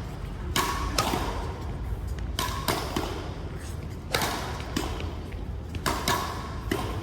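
Badminton rally: rackets striking the shuttlecock in sharp smacks, roughly one every second, in a large hall.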